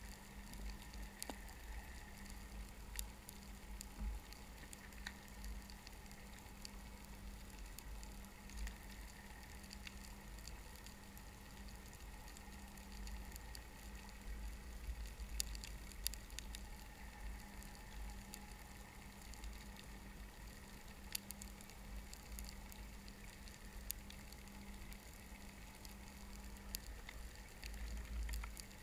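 Underwater ambience over a rocky reef: a steady low rumble and faint hum with scattered sharp clicks and crackling throughout.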